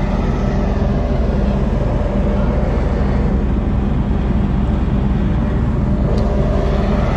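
A car ferry's engines running with a steady low drone, very loud on the open deck, mixed with wind blowing over the microphone.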